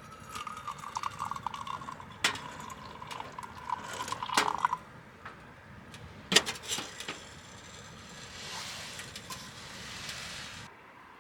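Liquid poured into a camp cup or pot for several seconds, with sharp clinks of metal cookware. A hiss near the end that cuts off suddenly.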